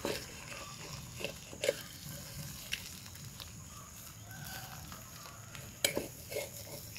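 A few light clicks and knocks of cooking utensils on a pan as bread is laid in, with faint chicken clucks in the background.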